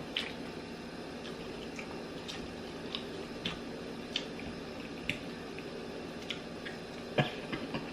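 Eating sounds: faint chewing and wet mouth noises with scattered small clicks, over a steady low room hum.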